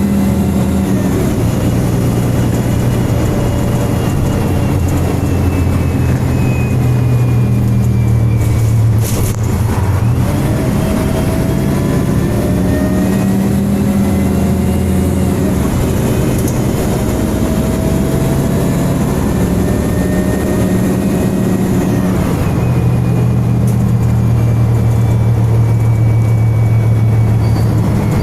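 Engine and cooling fan of a MAN single-deck bus heard from on board while it drives, the engine's pitch rising and dropping every few seconds as it pulls away and changes gear, with gliding whines over the top. A brief click comes about nine seconds in.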